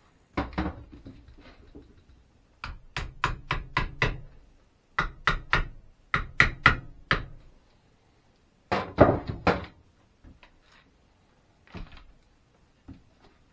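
Hammer tapping on the rim of a metal gallon paint can, in quick runs of several sharp taps with short pauses between, then a couple of lighter single knocks near the end.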